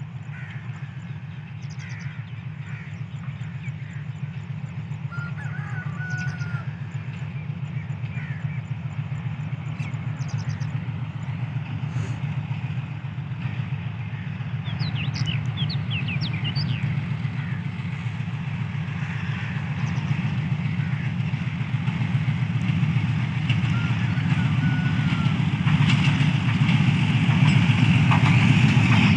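Pakistan Railways HBU-20 diesel-electric locomotive approaching, its engine's low drone growing steadily louder. Birds chirp over it, with a flurry of rising chirps about halfway through.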